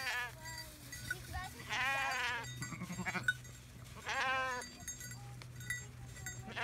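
Valais Blacknose sheep bleating: quavering bleats about two seconds in and again about four seconds in, with the end of another right at the start.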